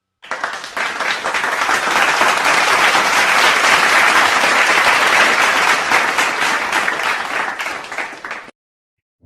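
Crowd applause: many hands clapping in a dense patter that builds quickly, holds, then thins and stops suddenly about eight and a half seconds in.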